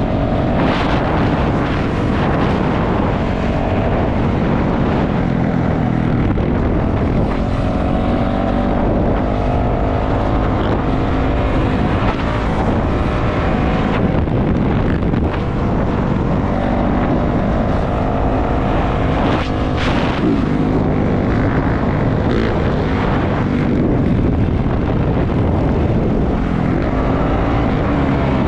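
450cc four-stroke dirt bike engine running while being ridden, its note rising and falling with the throttle.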